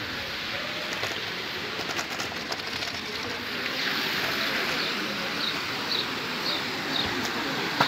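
Outdoor background noise with a small bird chirping repeatedly, about two short high chirps a second, starting about halfway through.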